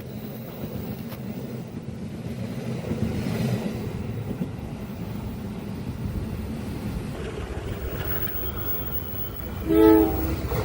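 Indonesian train running along the track with a steady rumble of wheels and railcars, then one short, loud horn blast near the end.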